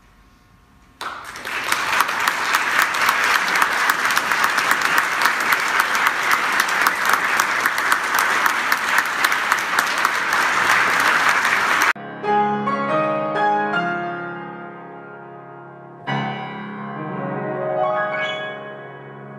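An audience applauding, starting about a second in and cut off suddenly about eleven seconds later. Solo piano music follows in two short phrases.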